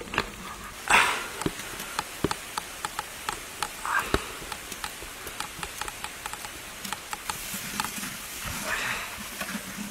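Hands squeezing and crushing ripe red fruit in liquid in a clay pot: a run of short wet squelches and splashes, a few a second, with a louder splash about a second in.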